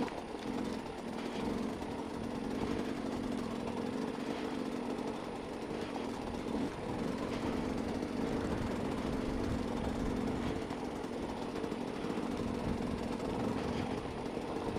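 Dirt bike engine running with a steady note as the motorcycle crawls over rough lava rock.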